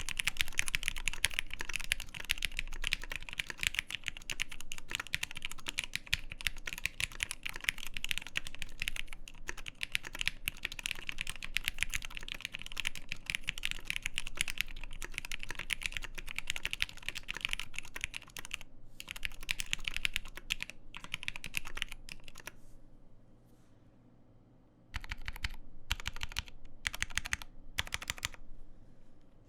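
Continuous fast typing on a custom Matrix 1.2 Original mechanical keyboard with lubed Gateron Black Ink linear switches, an aluminium plate and GMK keycaps: a dense stream of keystrokes that thins out and stops for a couple of seconds a little past two-thirds of the way in, then returns as several short bursts of keystrokes near the end.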